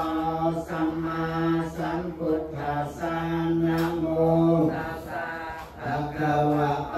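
Theravada Buddhist paritta chanting in Pali by low male voices, long notes held on a steady pitch, with brief breaks about two and a half and five and a half seconds in.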